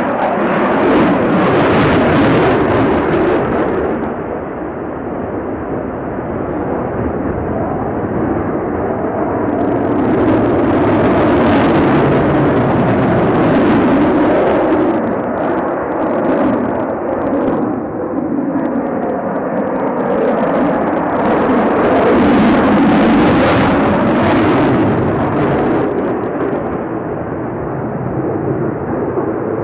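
Sukhoi Su-35's twin afterburning turbofan engines: loud jet noise that swells and fades several times as the fighter flies its display manoeuvres.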